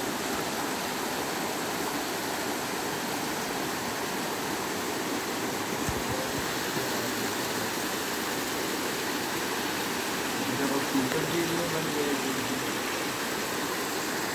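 Steady rushing water, as of a stream or waterfall, a constant even hiss.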